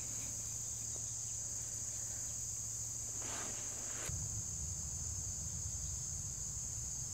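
Insect chorus: a steady high-pitched trill, with a faint rustle about three seconds in and a small click about a second later.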